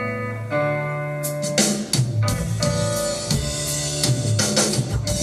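Recorded music played over hi-fi loudspeakers in a demonstration room: a slow instrumental intro with guitar, joined about a second in by a drum kit.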